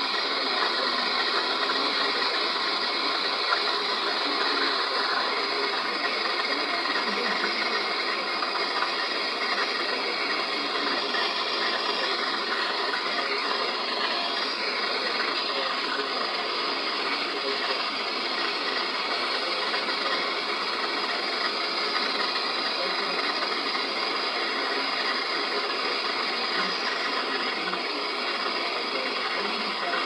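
Handheld MAP-gas torch (Bernzomatic) burning steadily, its flame a continuous even hiss, while copper refrigerator tubing at the filter dryer is brazed.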